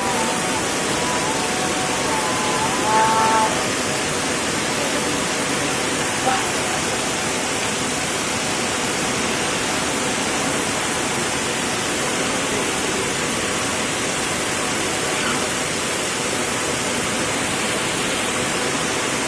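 Heavy rain pouring down in a steady, even rush. A brief pitched call cuts through about three seconds in, and a short knock comes about six seconds in.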